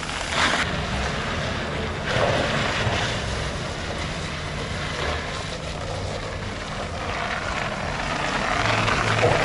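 A car engine running with a steady low hum. A rushing noise over it swells up a few times.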